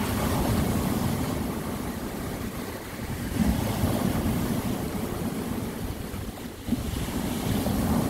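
Sea waves breaking and washing over a beach of rounded pebbles and cobbles, surging in about every three seconds.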